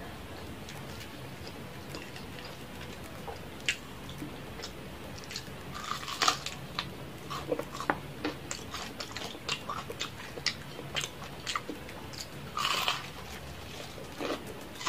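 Close-up eating sounds: crisp crunches and chewing as crispy fried chicken is bitten and chewed. The first few seconds are quiet, then sharp crunches come irregularly, with louder clusters about six seconds in and again near the end.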